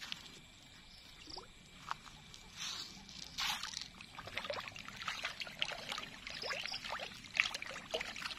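Fish splashing at the surface of a pond, a few at first, then many small quick splashes close together from about three seconds in.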